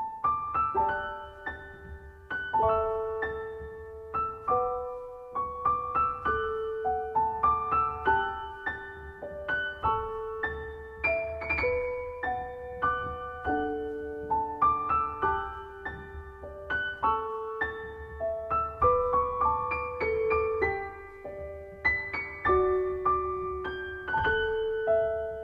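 Piano music: a slow melody of single notes over held lower notes.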